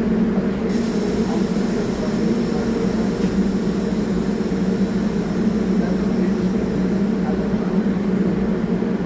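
Stationary R44 subway train humming steadily while stopped at the platform. A faint high whine comes in about a second in.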